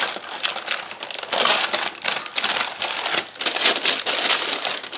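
Tissue paper and packaging crinkling and rustling in uneven bursts as hands rummage in a gift bag and lift items out.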